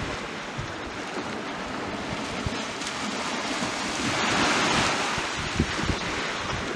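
Surf washing onto a sandy beach in a steady wind, with wind buffeting the microphone in low thuds. The rush swells about four seconds in, then eases off.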